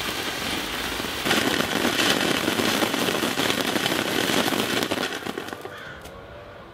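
Fountain fireworks spraying sparks with a dense crackle. The crackle grows louder about a second in, then dies away near the end as the fountains burn out.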